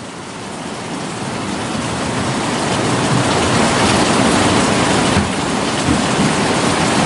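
Rushing water of a fast river over rocks: a steady hiss that swells gradually louder over the first few seconds and then holds.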